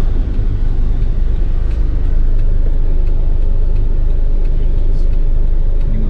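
Steady low rumble of a car driving: engine and road noise.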